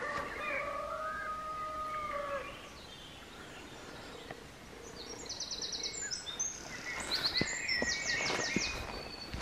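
Woodland songbirds singing, with quick high trills and warbling notes in the second half. A long steady note sounds in the first couple of seconds, and a few footsteps on the woodland path fall near the end.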